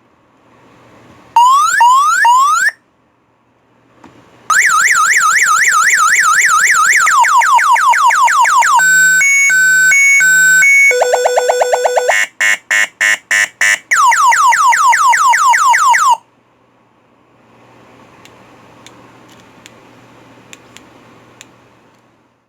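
Anti-theft alarm siren of a handlebar-mounted motorcycle audio system, sounding loudly through its speakers. It cycles through several tones: a few rising chirps, a repeating wail, a two-tone warble, a steady tone and rapid pulses, then more chirps, and stops about sixteen seconds in. After that there is only faint background noise with a few small clicks.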